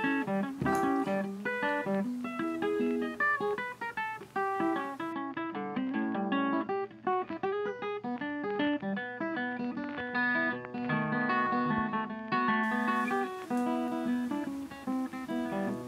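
Background music: a guitar playing a quick plucked melody.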